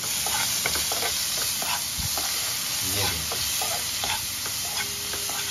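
Steel spoon stirring chopped vegetables in a non-stick frying pan, with irregular scrapes and knocks against the pan over the steady sizzle of the vegetables frying in ghee.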